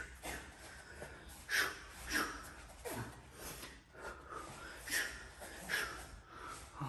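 A man's short, sharp breaths out through the nose and mouth, about six at irregular intervals, as he exhales with punches while shadowboxing.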